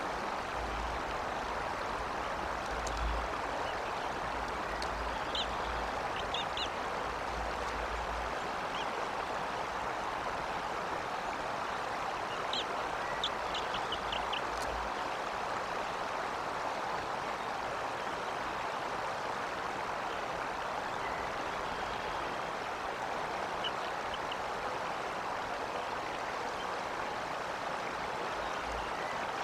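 Steady rush of running water, like a stream, with a few short runs of faint high chirps about a quarter of the way in, around the middle, and later on.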